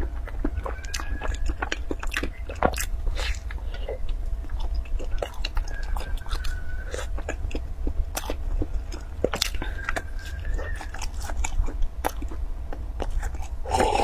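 Close-up chewing of a crisp, flaky fried pastry: wet mouth sounds with irregular crackles and crunches. Near the end comes a louder sip from a mug.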